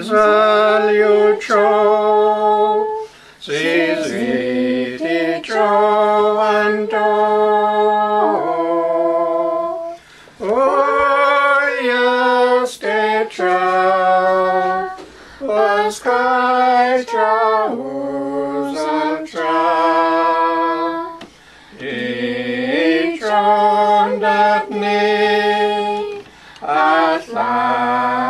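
Unaccompanied hymn singing in the Carrier (Dakelh) language: slow phrases of long held notes, broken by short pauses for breath.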